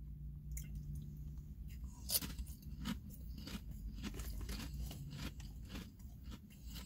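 Mouth crunching and chewing a honey butter potato chip: a quick run of crisp crunches, the loudest about two seconds in.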